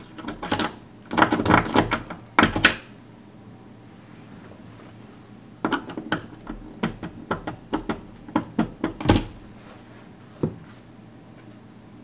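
Screwdriver clicking and rattling inside a drilled-out Kwikset deadbolt cylinder as it is worked to turn the lock open. Two bouts of quick clicks, the second longer, then one last click near the end.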